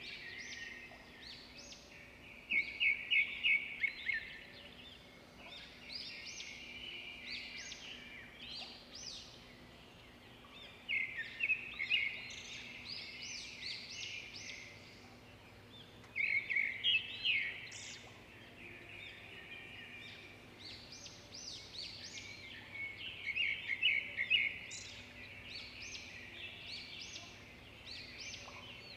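Small birds chirping and twittering in repeated bouts of quick high notes a few seconds apart, over a faint steady hum.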